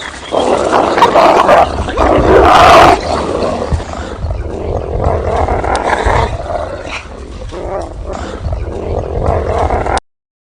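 Wolves growling and snarling in loud, rough bursts over a low rumble, cutting off suddenly near the end.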